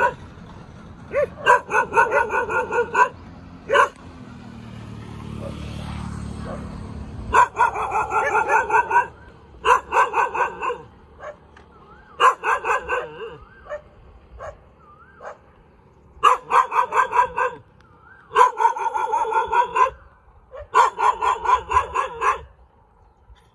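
A dog barking in repeated bouts of rapid barks, several quick barks to a bout, with short pauses between the bouts. Between the first bouts a low rumble swells and fades.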